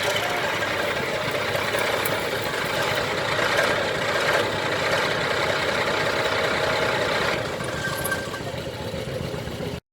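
Tractor engine running steadily, a little quieter from about seven seconds in, then cutting off abruptly near the end.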